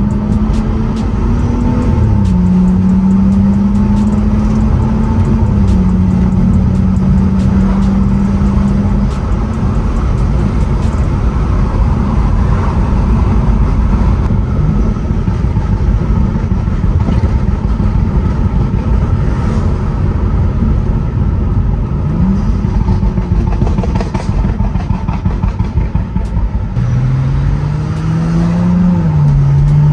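BMW F30 335i's N55 turbocharged inline-six, fitted with a catless downpipe and the stock muffler, heard from inside the cabin while driving. It holds a steady drone for several seconds with a couple of drops in pitch, then runs on under road rumble, and near the end the revs rise and fall again.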